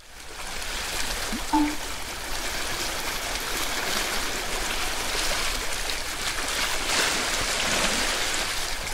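Steady rushing and splashing of sea water washing against a breakwater. About a second and a half in there is one short pitched squeak that rises and then holds.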